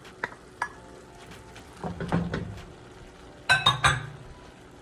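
A cooking utensil knocking and scraping against a pot while stirring browning ground beef and onions: a few light clicks, a scraping stretch about two seconds in, then a quick run of ringing clinks about a second and a half later.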